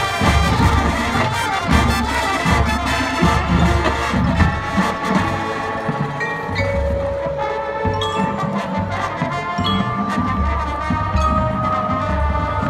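Marching band playing live: brass with front-ensemble percussion, including mallet instruments and drums. Heavy low drum hits through the first half give way to long held brass notes in the second half.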